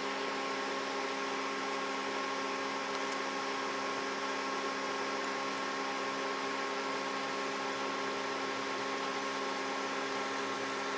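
A steady machine hum over an even hiss, holding several constant tones without change.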